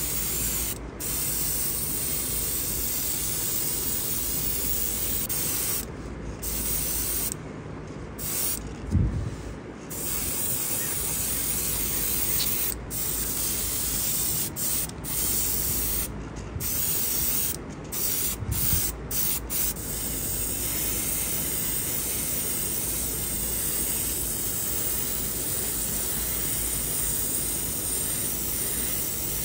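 Airbrush spraying paint: a steady hiss of air and paint that stops and restarts several times as the trigger is let go, most often in the first two-thirds. A steady low hum runs underneath, and there is a short low thump about nine seconds in.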